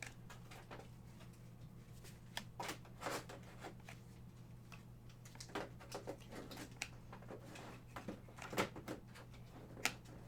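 Football trading cards being handled and slid over one another, making faint, scattered soft clicks and rustles over a steady low hum.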